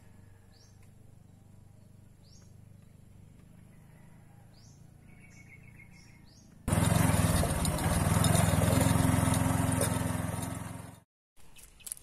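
Quiet rural outdoor ambience with scattered short bird chirps and a brief trill. About two-thirds of the way in, a loud rushing noise starts abruptly, holds for about four seconds and fades away.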